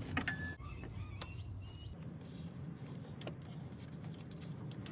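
Faint, scattered clicks and light mechanical knocks, a handful over the few seconds, over low background noise.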